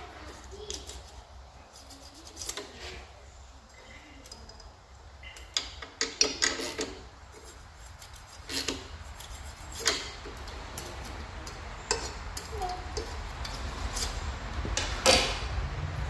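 Scattered light metallic clinks and taps of hand tools and a feeler gauge against a lawn tractor's PTO clutch assembly as its clearance is checked at the adjusting nuts. A low steady hum runs underneath and grows louder near the end.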